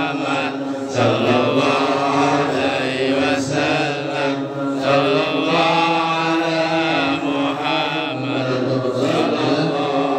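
Men chanting an Islamic devotional chant together, a lead voice sung into a handheld microphone over the mosque's loudspeakers, continuous and held on long notes.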